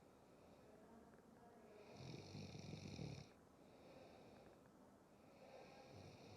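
A sleeping person snoring quietly: one snore of about a second starting two seconds in, softer breaths after it, and another snore beginning near the end.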